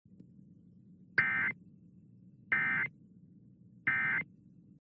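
Emergency Alert System end-of-message (EOM) data bursts: three short, identical digital warbles just over a second apart, marking the end of the alert message. A faint low hum runs underneath.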